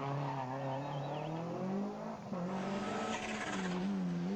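Rally car engine at high revs, its pitch falling and rising with throttle and gear changes. The sound cuts abruptly to another car a little over two seconds in.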